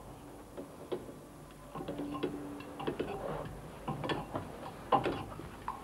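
Scattered knocks and clicks of shoes and hands on an aluminium ladder as someone climbs down it through a wooden trapdoor, sparse at first and busier from about two seconds in.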